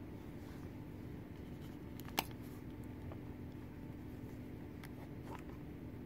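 Metal snap fastener on a leather knife sheath popping open with one sharp click about two seconds in, followed by a few faint clicks as the Swiss Army knife is drawn out, over a steady low hum.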